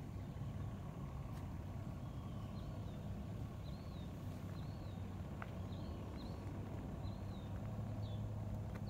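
A steady low machine-like hum runs throughout, and from about two seconds in a bird gives short, high, repeated chirps.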